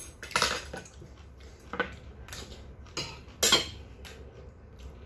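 Metal chopsticks clinking against a stainless steel bowl and plastic food container: about five short, sharp clinks, the loudest about three and a half seconds in.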